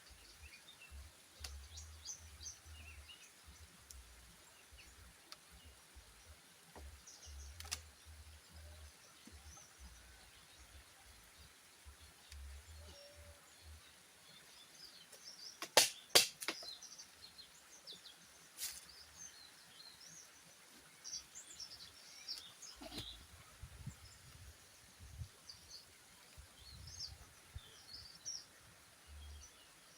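Small birds chirping here and there in the background, with a few sharp knocks; the loudest is a quick cluster of three or four knocks about halfway through.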